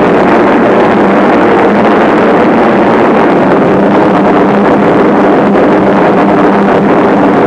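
Steady, loud drone of four-engine piston bombers in flight.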